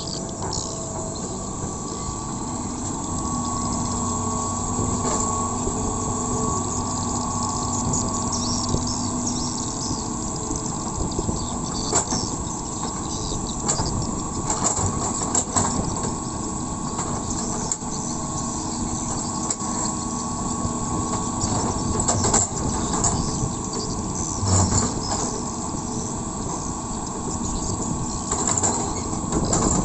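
Hitachi EX200LC hydraulic excavator's diesel engine running steadily under load while it digs and spreads earth, with repeated clanks and knocks from the bucket and arm, more of them in the second half and the loudest thump about 24 seconds in.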